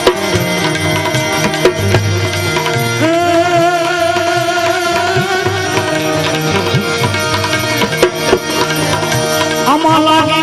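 Instrumental interlude of a bhajan: tabla keeping the rhythm under a melody line of wavering held notes.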